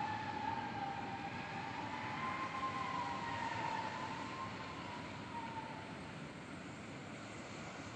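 A long, eerie moaning tone that slowly wavers up and down in pitch, sounding like a whale, and fades toward the end over a hiss of wind.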